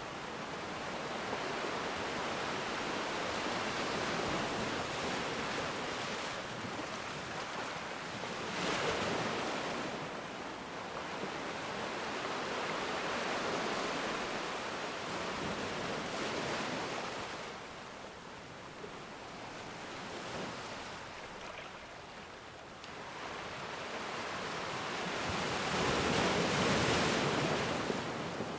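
Ocean waves breaking and washing on a shore, a steady surf hiss that swells and falls, with the biggest surges about a third of the way in and again near the end.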